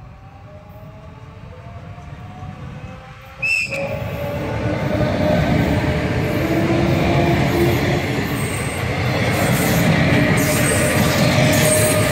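Renfe Class 447 electric multiple unit approaching and passing close by: a growing rumble that jumps sharply in loudness about three and a half seconds in, with a brief high note, as the front reaches the microphone, then the steady rumble of wheels on rail with a low motor whine as the cars go by.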